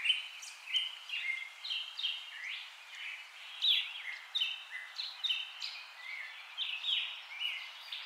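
Small birds chirping: a busy run of short chirps and quick downward-sweeping whistles, several a second, over a steady hiss.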